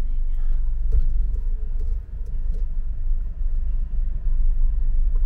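Low, steady rumble of a car driving slowly, heard from inside the cabin: engine and road noise.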